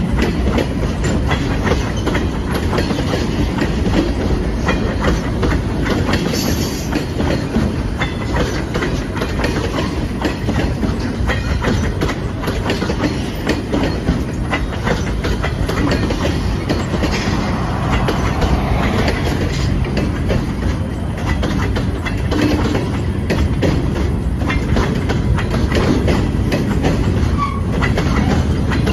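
A train of freight cars rolling by, its wheels clicking steadily over rail joints over a continuous rumble.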